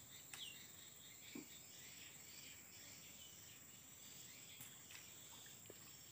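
Near silence: faint swamp ambience with a steady high-pitched insect drone and a few faint short chirps and soft clicks.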